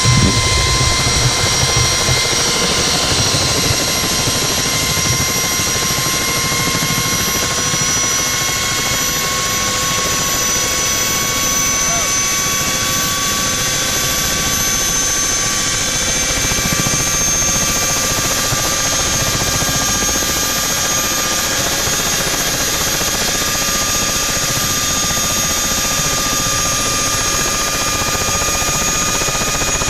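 Ultrasport 496 ultralight helicopter running on the ground with its main rotor turning, a steady engine-and-rotor drone with a whine whose pitch creeps slowly upward as it runs.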